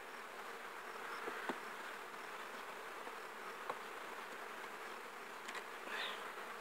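Honey bees buzzing steadily over an open hive, with two sharp clicks, about a second and a half and nearly four seconds in, as a metal hive tool works among the wooden frames.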